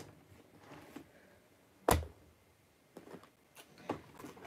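A single dull thump about two seconds in as a box comes down onto the carpet, with a few light clicks and rustles of handling around it.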